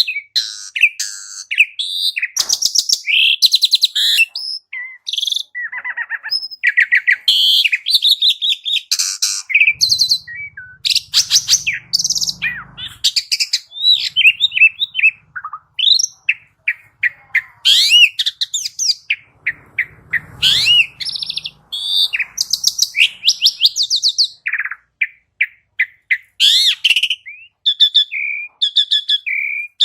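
Pied starling (jalak suren) singing a fast, unbroken run of varied whistles, chirps and rasping notes.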